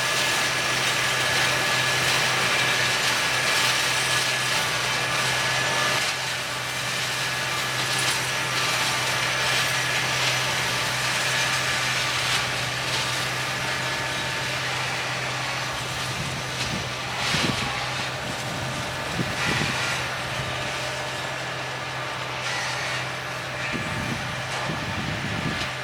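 Tractor-driven flail mower running steadily, a constant low engine and rotor hum with a thin whine above it. A few short, louder noises come past the middle and again near the end.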